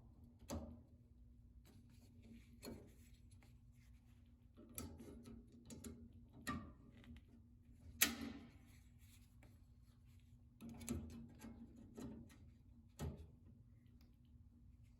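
Faint, scattered clicks and knocks of hand tools and small metal parts being handled at the drinking fountain's valve, about eight in all, the loudest about eight seconds in, over a steady low hum.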